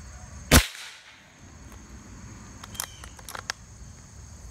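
A single shot from a Winchester Model 70 .357 big-bore PCP air rifle: one sharp crack about half a second in. Some two seconds later come a few quick metallic clicks as the bolt is worked to chamber the next pellet. Crickets chirp steadily underneath.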